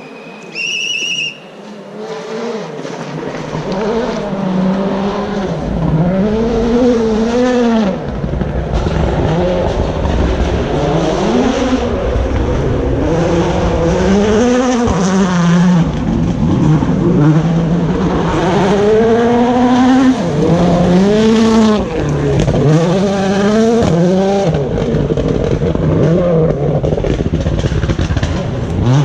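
Rally car's turbocharged four-cylinder engine revving hard, its pitch climbing and dropping again and again through gear changes, growing louder over the first twenty seconds. A short electronic beep sounds about a second in.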